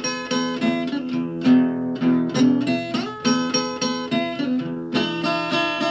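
Background music: a guitar playing a steady rhythm of plucked or strummed chords, about three strokes a second.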